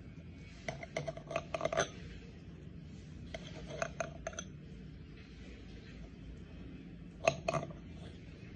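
Metal knife and fork clinking and scraping against a plate while cutting a pancake, in three short bursts of clicks: about a second in, around four seconds in, and near the end.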